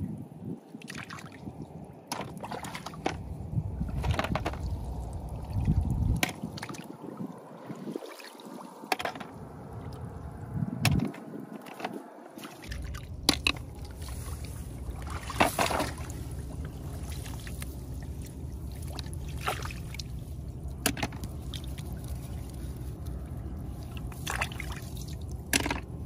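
Hands splashing and sloshing in shallow, muddy rice-field water while snails are picked out by hand, with irregular small splashes. A steady low rumble sits underneath from about halfway through.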